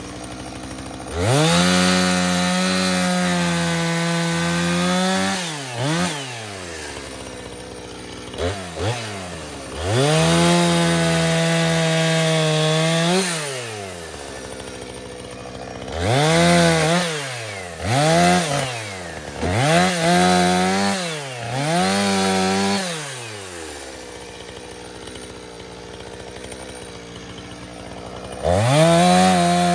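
Two-stroke chainsaw revving up to full throttle to cut wood and dropping back to idle between cuts: two long cuts of about four seconds each, then a run of short bursts, and a last rev-up near the end.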